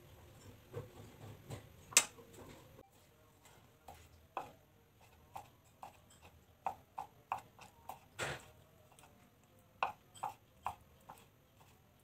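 Kitchen knife slicing a tomato and then meatballs on a wooden cutting board: scattered clicks and taps as the blade goes through and meets the board, with a quick run of taps about six to seven seconds in and a louder knock about eight seconds in.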